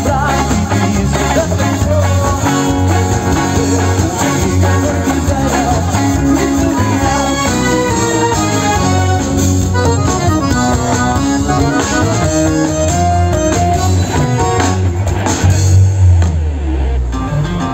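Live band playing amplified music: electric guitars, bass and drums, with a melodic lead over a heavy bass line. Near the end the higher parts drop away, leaving a loud low bass swell.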